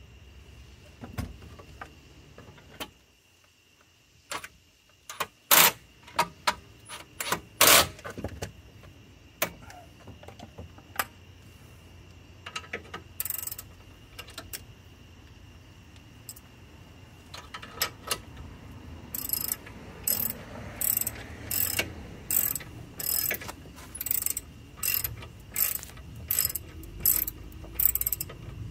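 Scattered metal clicks and knocks as the brake caliper is handled and fitted, then, from about two-thirds of the way in, a socket ratchet clicking in regular strokes, about two a second, as a caliper bolt is run in.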